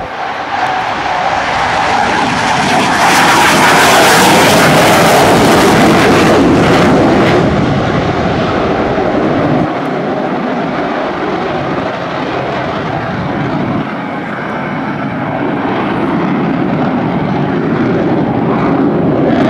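US Navy F/A-18 Hornet jet taking off and climbing away, a loud jet roar with crackle. The sound is loudest a few seconds in, then falls back and wavers unevenly as the jet banks and climbs into the distance.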